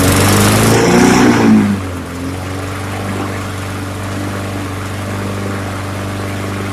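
A Troy-Bilt push mower's 140cc Briggs & Stratton engine running on a test fire after a carburetor repair. It runs loud with a wavering pitch, then about two seconds in settles to a steady, quieter run.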